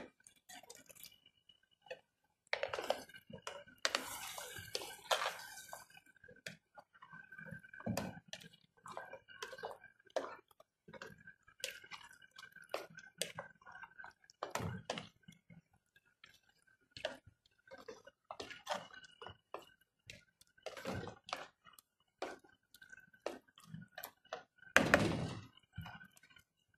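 Crushed tomatoes going into a pot of sautéed meat and okra with a brief hiss about three seconds in, then a spoon repeatedly knocking and scraping against the pot as the mixture is stirred.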